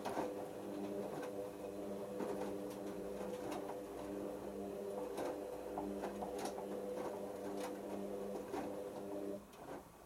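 Hoover Optima OPH714D washing machine in its main wash, the drum tumbling the wet load: a steady motor hum with irregular soft knocks from the clothes. The motor stops near the end, as the drum pauses between tumbles.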